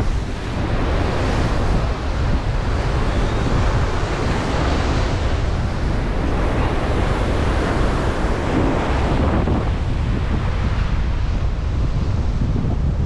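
Heavy ocean surf breaking and washing against a rocky shoreline, surging several times. Strong wind buffets the microphone with a deep rumble.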